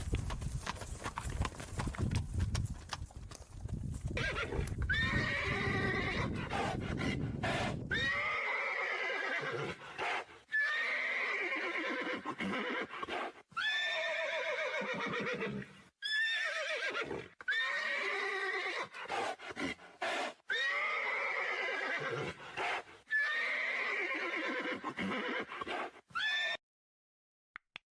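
Hooves of a herd of horses galloping for the first several seconds, then horses neighing over and over: a run of seven or eight quavering whinnies, each falling in pitch. The sound stops suddenly shortly before the end.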